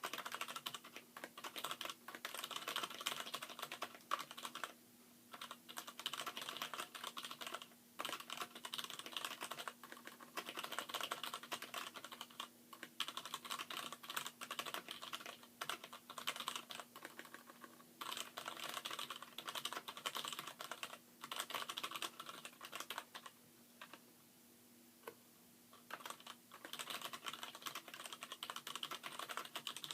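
Fast typing on a Poker X mechanical keyboard with hybrid switches: Gateron Brown stems and springs in Cherry MX Black housings. It is a dense run of key clacks broken by short pauses, the longest lasting about two seconds a little past two-thirds of the way through.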